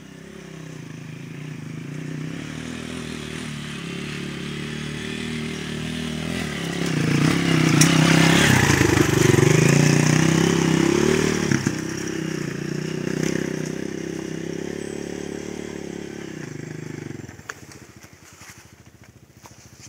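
Dirt bike engine growing louder as it rides up a rough track, loudest as it passes about eight to eleven seconds in, its pitch dipping and rising with the throttle. It then recedes and falls away sharply near the end.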